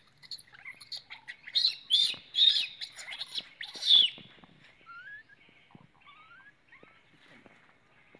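Infant macaque screaming in a string of shrill, squealing cries, the loudest in the first half. These fade to a few faint rising whimpers near the end: the protest of a baby being weaned and refused the breast.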